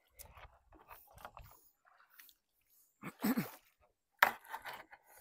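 Short wooden knocks and clatters of a bamboo pole worked against a bamboo raft in the water, the loudest a sharp knock about four seconds in.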